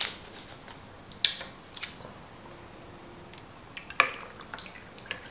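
Plastic cap twisted off a bottle of iced tea with a few sharp clicks. About four seconds in, a sharp clink as the tea begins pouring over ice into a glass mug.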